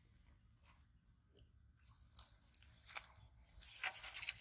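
Faint crunching and rustling of footsteps through grass and dry leaves, with a cluster of sharper crackles near the end.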